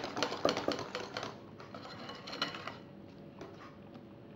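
Wire whisk beating batter in a glass bowl: fast clicking of the wires against the glass, which thins out after about a second and dies away to a few light taps by the middle.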